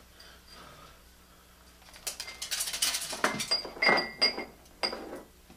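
Glass jar rattling and clinking as sunflower seeds are tipped from it, starting about two seconds in, with several short ringing clinks of glass a little after the midpoint.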